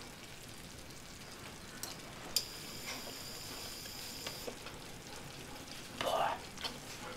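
Beef and vegetables sizzling faintly in a wok on low heat, with a light click about two seconds in and a short puff of breath near the end.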